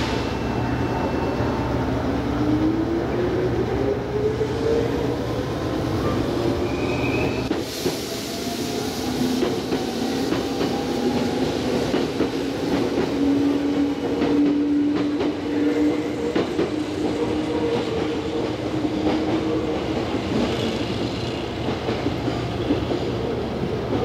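Red Meitetsu electric train running past, its wheels clattering on the rails. A motor whine rises in pitch a few seconds in, then holds steady through the middle.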